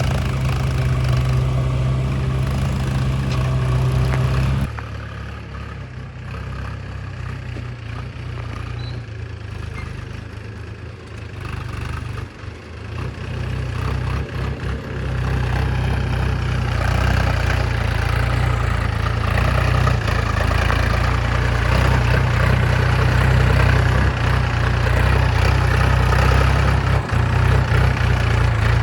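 Heavy diesel engine running steadily. It drops suddenly to a fainter run about five seconds in, then grows louder again from about halfway and stays loud.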